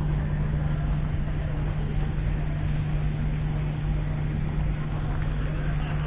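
Steady low drone of a large engine running at a constant idle, with an even hum and no change in pitch or level.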